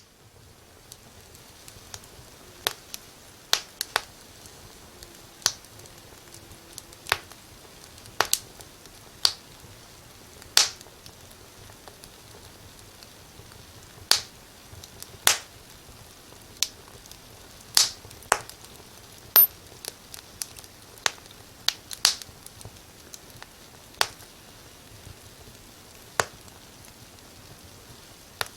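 Firewood burning in a fireplace: sharp, irregular crackles and pops every second or two over a soft steady hiss of the fire.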